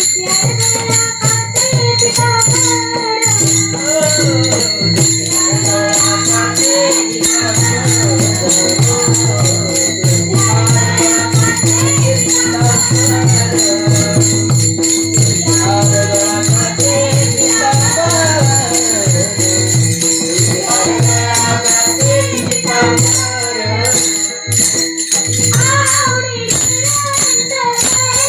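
Devotional kirtan music: a woman sings a Marathi panchapadi over steady metallic jingling percussion and a regular drum beat. A held drone note sounds under the singing for most of the passage.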